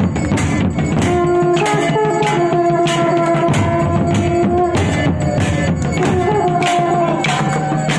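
Live devotional procession music: drums beating a steady rhythm about twice a second under long held notes from a brass horn.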